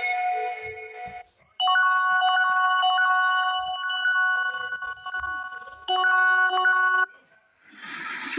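Huawei P60 ringtones: a tune fades out, and after a brief gap a bright, bell-like phone ring of steady repeated tones plays, pausing once, then stops. Near the end a rushing, splashing sound starts, the opening of the next ringtone.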